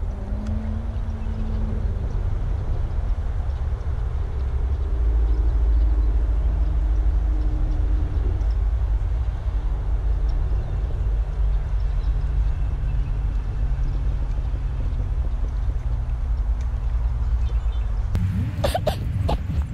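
Steady low rumble of passing motor traffic, with a faint engine drone that drifts in pitch and swells about five seconds in. A run of sharp clicks and knocks near the end.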